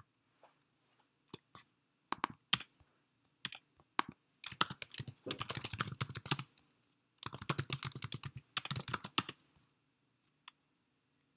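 Typing on a computer keyboard: a few scattered keystrokes, then two quick runs of typing of about two seconds each, starting about four and a half and about seven seconds in, then a few last taps.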